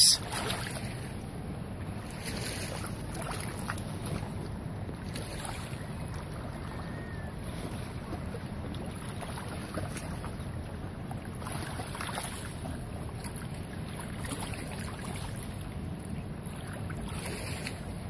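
Steady wind noise buffeting the microphone over open lake water, with soft swells as gusts come and go.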